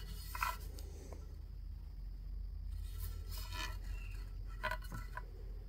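Faint handling noises: a few short scrapes and rustles as the axe is turned in the hands, over a low steady hum.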